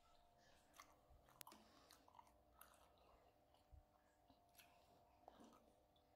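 Near silence, with faint scattered clicks and small taps.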